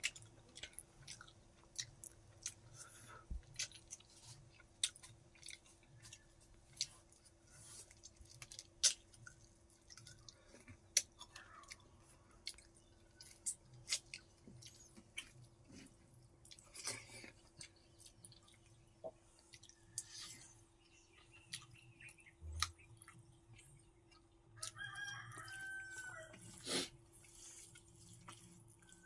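Close-up chewing and wet lip smacking: many short, sharp mouth clicks as a man eats rice and curry by hand. About 25 seconds in, a chicken calls in the background for a couple of seconds.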